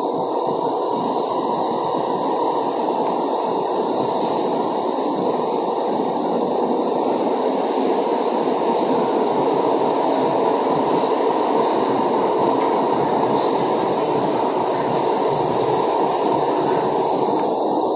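Doha Metro train running, heard from inside the passenger car: a steady rumble of wheels and drive that grows slightly louder, with faint ticks and a thin high whine over it.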